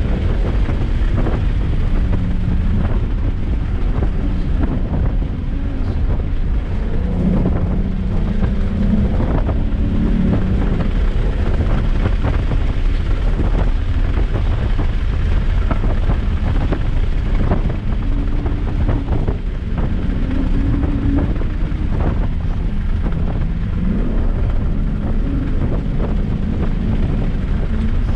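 Car being driven hard, its engine note rising and falling with the throttle over a constant heavy rumble of road and wind noise.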